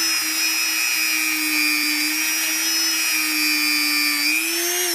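Dremel rotary tool spinning a cotton buffing disc at a steady high speed, a single high whine, as it buffs a French-polish finish onto a wooden chess piece. A fainter lower hum stops near the end, and the whine lifts slightly just before the tool is switched off.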